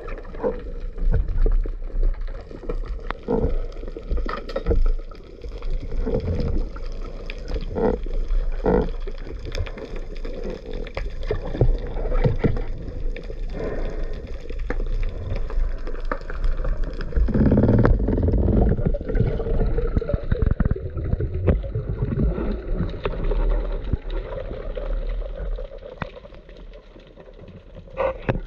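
Muffled underwater sound picked up through a camera housing: water moving and sloshing over a constant low rumble, with many scattered sharp clicks and knocks, swelling louder for a few seconds past the middle.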